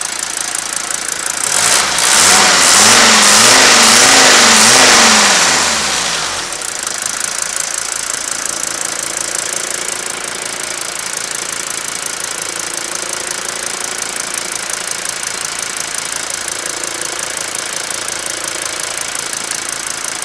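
Mercedes 190 2.5 diesel's five-cylinder engine, heard close in the open engine bay. It is revved for a few seconds about a second and a half in, its pitch rising and falling, then drops back to a steady idle.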